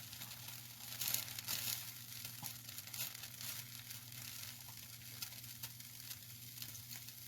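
Fettuccine sizzling and crackling quietly in a hot pan, with a steady low hum underneath.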